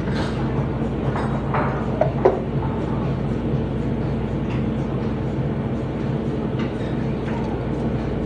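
Steady low mechanical hum of restaurant equipment, such as refrigeration or ventilation, holding a few fixed tones at an even level. A few faint clicks and clinks sound about two seconds in.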